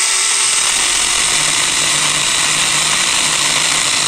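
Seesii 21-volt cordless mini chainsaw running at full speed, its chain cutting through a branch about three inches thick, a loud, steady sound throughout.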